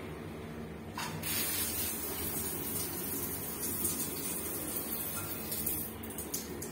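Water spraying from a handheld shower head as a steady hiss. It starts suddenly about a second in and breaks up near the end.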